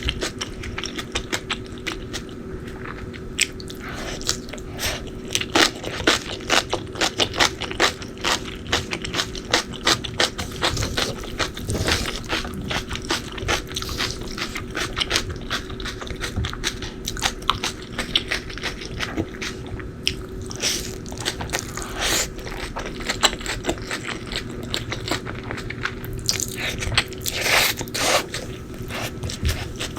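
Close-miked eating: crunchy bites and chewing, a dense run of crisp clicks and crackles over a steady low hum.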